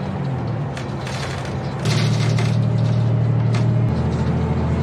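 Public bus running on the road, heard from inside the cabin: a steady low engine drone with scattered rattles and clicks from the bus interior. The drone gets louder about two seconds in.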